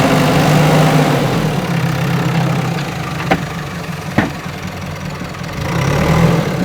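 JCB backhoe loader's diesel engine running, louder for the first second and a half and again near the end as it works. Two sharp knocks about a second apart in the middle.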